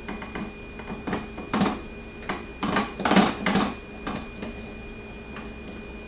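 Small metallic clicks, knocks and rattles of a 6 mm hex wrench and the saddlebag mounting bolts being worked loose and handled inside a motorcycle saddlebag. The sounds come irregularly, busiest between about one and three and a half seconds in, over a faint steady hum.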